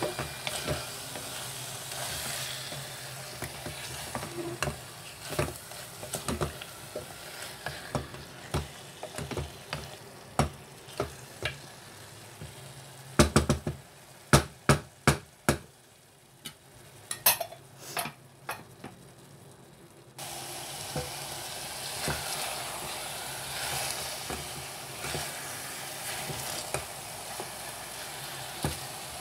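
Marinated chicken pieces sizzling in a metal pressure cooker pot as they are stirred with a wooden spatula, which scrapes and knocks against the pot. About halfway through, the sizzle drops away for several seconds while a run of sharp, louder knocks sounds.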